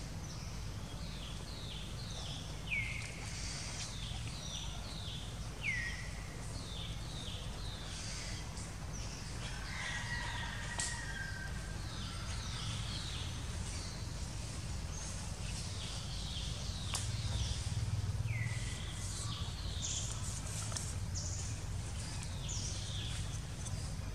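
Forest birds calling: many short, high, downward-sliding chirps repeat throughout, with a few louder descending calls standing out, over a steady low rumble.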